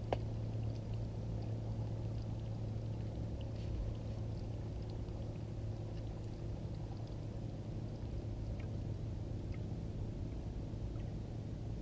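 Boat motor running at a steady pitch, a low even hum, with a sharp click just after the start.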